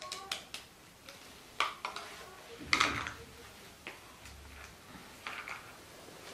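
Light, irregular clicks and taps of small plastic bottles, a cap and a plastic jar being handled, the loudest a little under three seconds in.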